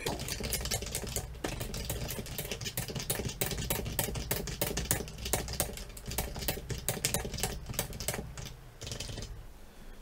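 Rapid typing on a computer keyboard: a fast, steady run of key clicks that thins out near the end, over a low hum.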